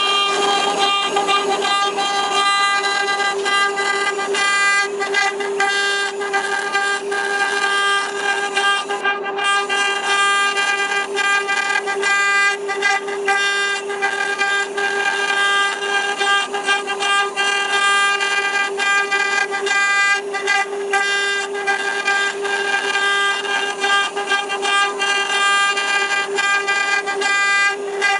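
Desktop 6090 CNC router spindle whining at a steady high pitch while its bit carves a relief into a wooden board. A rough, uneven rasp of the cutter biting the wood runs under the whine.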